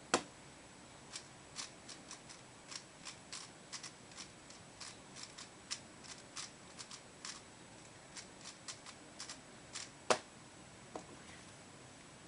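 Plastic 3x3 Rubik's Cube being turned fast in a speedsolve: a run of short clicking layer turns, about three a second, with a sharp louder click near the start and another about ten seconds in, then the clicking stops.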